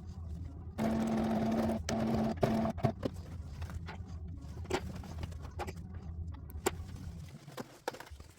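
Electric sewing machine running in short bursts, one of about a second then two brief ones, stopping and starting, followed by scattered light clicks and taps.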